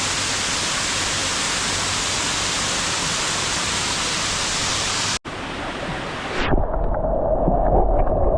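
Steady, loud rush of a waterfall. A split-second gap about five seconds in, then the sound turns muffled with a low rumble near the end.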